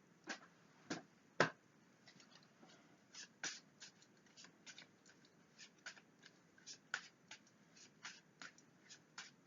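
Fortune-telling cards being handled and laid out on a table: a run of short, soft card snaps and flicks at an irregular pace, about two a second, the loudest near the start.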